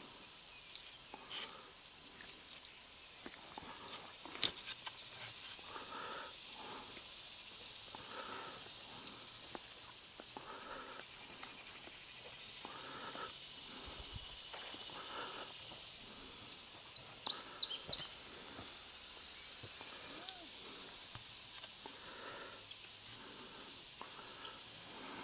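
Steady high-pitched drone of summer insects, with soft footsteps on garden soil about once a second. There is one sharp click a little over four seconds in, and a short run of high chirps about two-thirds of the way through.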